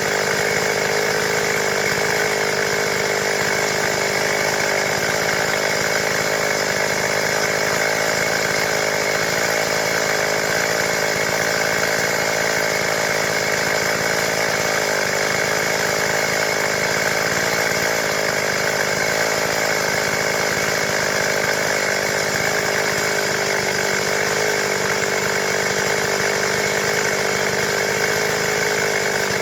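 Stihl MS 382 two-stroke chainsaw running steadily at full throttle while cutting lengthwise through timber to make boards, with no let-up or change in engine pitch.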